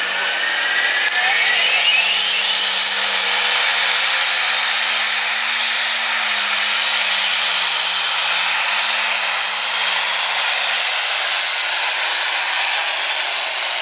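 Turbocharged diesel pulling tractor at full throttle dragging a weight-transfer sled: a loud, steady engine and turbo sound, with a whine that climbs in pitch over the first few seconds.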